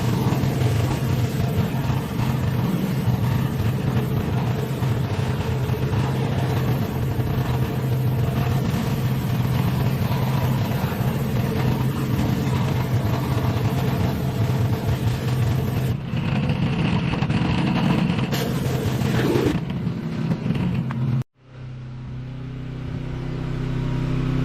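Pressure washer running: a steady engine hum under the hiss of the water jet. Near the end the spray sound cuts off abruptly, leaving the machine's engine humming on its own.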